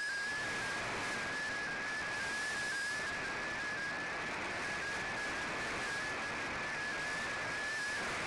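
Shortwave receiver audio of an MFSK digital picture transmission: a single high data tone that wavers slightly in pitch, over steady static hiss from a weak, noisy signal.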